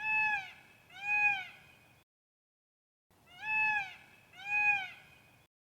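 Domestic cat meowing: four short meows, each rising then falling in pitch, in two pairs about a second apart.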